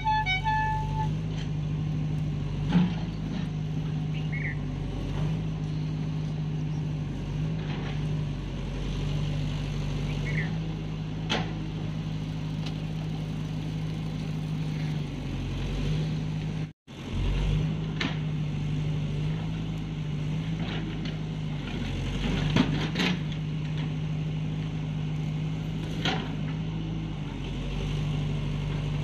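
A steady low engine hum with a few light knocks scattered through it.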